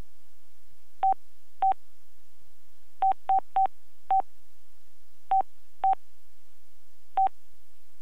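Key-press beeps of an LG Voyager VX10000 phone as its keypad is pressed to move through the menus: nine short beeps, all at the same pitch, at irregular intervals, with a cluster of three quick ones about three seconds in.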